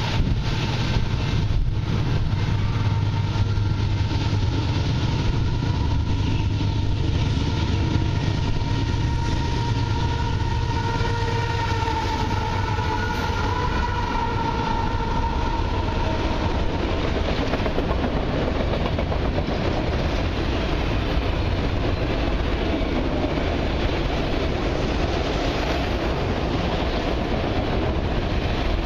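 Canadian Pacific freight train passing at speed: a steady engine hum with a whine over it for the first half or so, giving way to the rumble and clatter of autorack cars rolling by on the rails.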